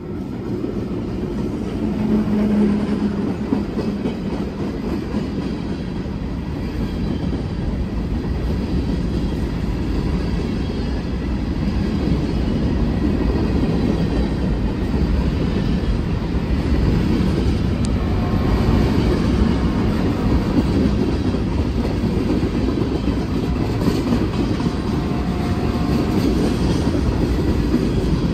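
Delmarva Central Railroad freight train passing close by. Its diesel locomotives go by in the first few seconds, then a long line of covered hopper and tank cars rolls steadily past, a continuous rumble with some clickety-clack of the wheels.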